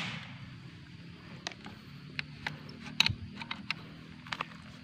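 The echo of a gunshot fading at the very start, then a scattering of sharp crackles and snaps, like dry palm fronds and twigs crunching, over a faint low hum.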